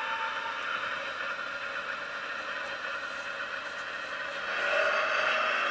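Recorded Napier Deltic diesel engine sound played by the DCC sound decoder through the tiny speaker of an N gauge Deltic DP1 model locomotive as it runs along the track: a steady, thin engine drone that grows louder about four and a half seconds in.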